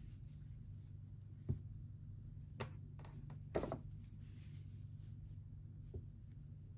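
Quiet handling noises of fuzzy fleece socks being moved about near a paper gift bag and tissue paper: a few soft taps and rustles, the loudest about three and a half seconds in, over a low steady hum.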